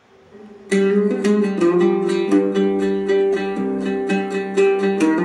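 Background music on a plucked string instrument, like a guitar, playing a quick run of picked notes; it comes in suddenly just under a second in after a faint swell.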